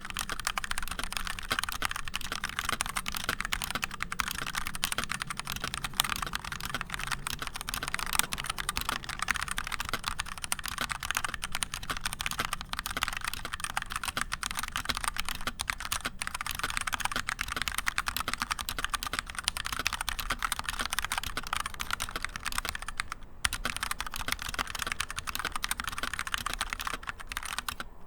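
Continuous fast typing on a Xiaomi Yuemi MK01 mechanical keyboard with linear TTC Red switches, giving a dense clatter of keystrokes with occasional brief pauses.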